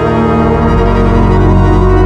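Background music led by a sustained organ, with held chords that change about once a second.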